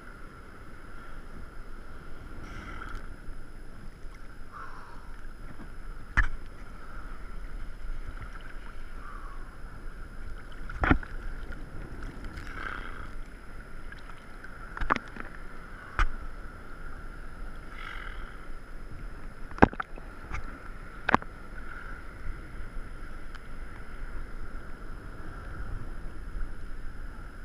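Small lake waves lapping and splashing against a camera sitting at the water's surface, with several sharp slaps of water striking it.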